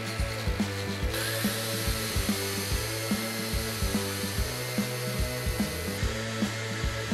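Background music with a steady beat, over the high steady whir of a power tool cleaning rusty iron: from about a second in, a twisted wire brush spins inside the eye of an old axe head, starting with a short rising whine.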